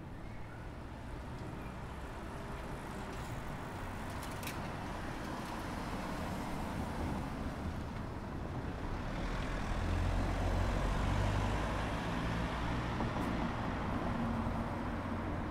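Road traffic: a motor vehicle's engine rumble builds gradually and is loudest about two-thirds of the way through, over a steady hum of street traffic.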